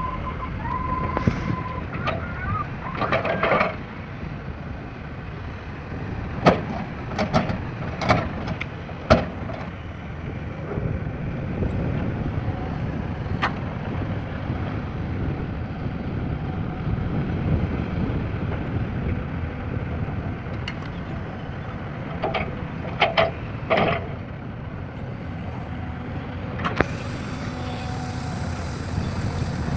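Heavy diesel machinery running steadily, with sharp metallic knocks and clanks now and then, in small clusters.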